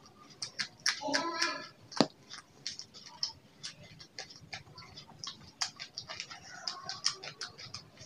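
Close-miked chewing of a raw green chilli: a run of wet crunches and mouth clicks, with one sharp snap about two seconds in.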